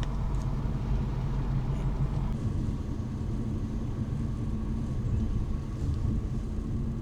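Car driving at steady speed, heard from inside the cabin: a steady low engine hum over road and tyre noise.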